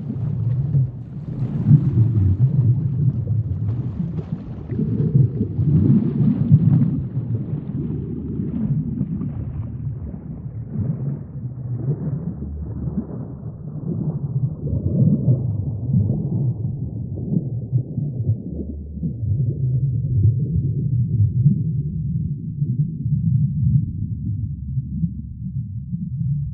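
Low, rumbling gurgle of moving water with many faint crackles over it, like a reef tank's water circulating and bubbling; the sound grows steadily duller toward the end.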